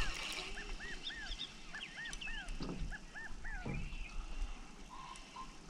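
Short, high calls that rise and fall, repeated in quick runs of two and three notes, from an animal.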